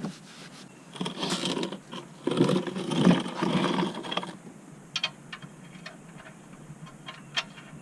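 Hands and parts being worked under a vehicle during an oil change: rustling and scraping for a few seconds, then a run of light, sharp clicks.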